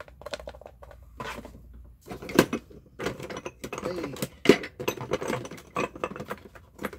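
Rummaging through a clear plastic storage drawer unit: hard plastic and small loose objects clicking, clattering and knocking as they are handled and set down, with sharper knocks about two and a half seconds in and again about four and a half seconds in.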